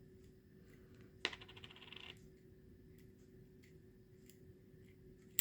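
Faint small metal clicks of a penny turning the flint-spring screw out of a Zippo lighter's insert: one sharp click about a second in, then a quick run of light ticks for nearly a second, and another click at the end.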